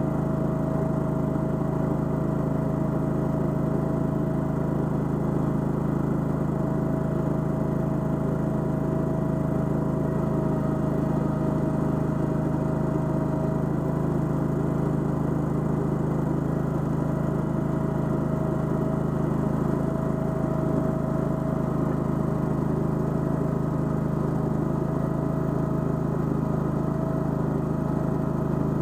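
Toro Dingo mini skid steer's carbureted gasoline engine running steadily at an even throttle, with a constant whine above it.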